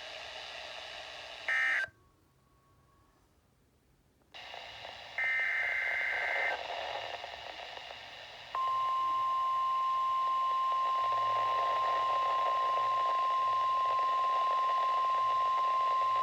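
Weather radio alert audio. A short burst of warbling digital SAME header data tones about 1.5 s in, then near silence and receiver hiss, and another data burst around 5 s in. About 8.5 s in, the steady single-pitch 1050 Hz NOAA Weather Radio warning alarm tone starts and holds, announcing the next warning.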